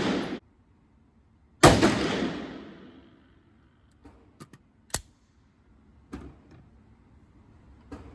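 AR-15-style rifle firing a single shot about a second and a half in, its report echoing and fading over about a second. The tail of a previous shot ends just at the start, and several fainter sharp cracks follow.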